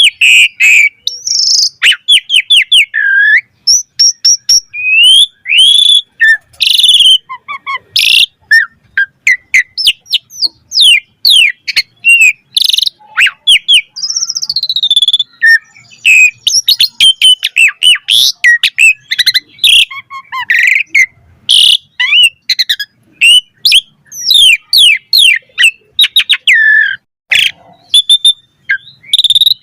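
Pied starling (jalak suren) singing a fast, varied song: a dense run of whistles, rising and falling glides, chattering notes and sharp clicks, with only brief pauses between phrases.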